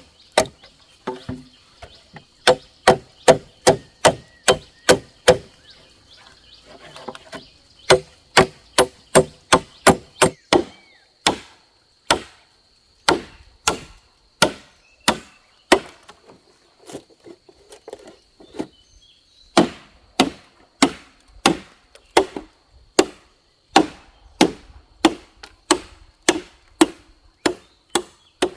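Repeated chopping blows into bamboo, about two sharp strikes a second, with a few short pauses between runs.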